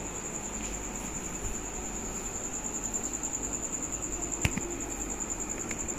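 A cricket trilling steadily on one high note, over faint rustling of cloth being handled, with one sharp click about four and a half seconds in.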